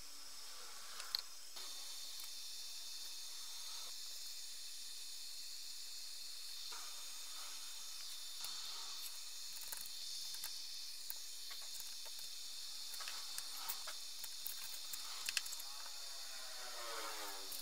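Paintbrush dabbing and stroking thick blue paint onto a cast-iron engineer's vice: faint soft brushing sounds at irregular intervals over a steady high hiss, with a brief squeaky sweep near the end.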